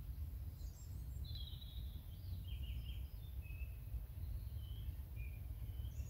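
Small songbirds chirping and singing in short high phrases, over a steady low background rumble.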